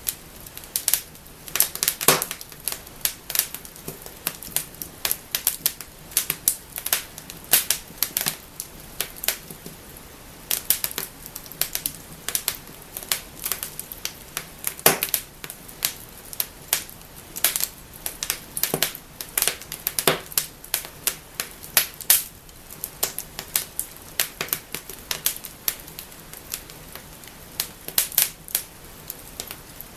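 Wood fire burning in a fireplace, crackling and snapping continuously with irregular clicks and several louder pops.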